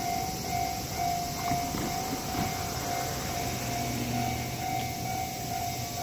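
Japanese railway level-crossing warning bell ringing, an electronic ding repeating steadily at about two a second, over street traffic noise with a vehicle engine passing in the middle.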